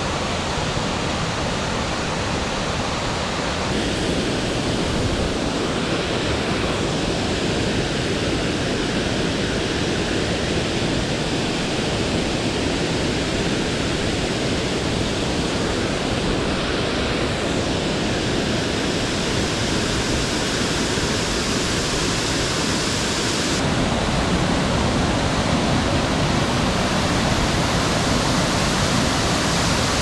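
A waterfall's steady rush of water falling into a pool. The tone of the rush changes abruptly a few times as the sound cuts between falls, and it is a little louder from about two-thirds of the way in.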